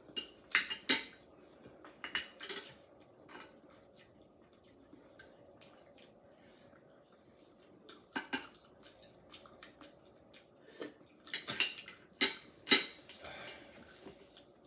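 Tableware clatter while eating shellfish: chopsticks and clam shells click and clink against a glass bowl and plates. The clicks come in short clusters about half a second in, around two seconds, around eight seconds, and more busily about eleven to thirteen seconds in.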